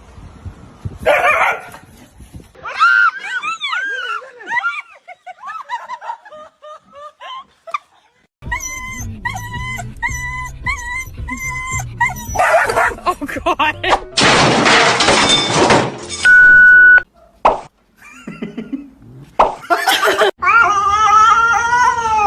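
Dog vocalisations across a run of short clips: pitched calls that rise and fall, then repeated short notes, broken by a loud stretch of noise and a brief steady tone.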